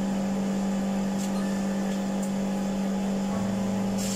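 A steady low machine hum over a faint hiss, holding one even pitch and level throughout.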